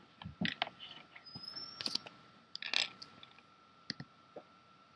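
Irregular light clicks and small knocks of handling at a computer, such as mouse clicks, with a faint steady high whine underneath.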